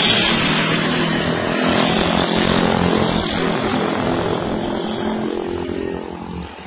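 Busy road traffic: a heavy truck passes close by, its noise loudest at the start, then engines of motorbikes and another truck going by keep up a steady hum that eases near the end.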